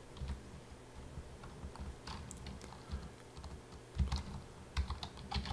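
Typing on a computer keyboard: a few scattered keystrokes, then a quicker run of keys about four seconds in.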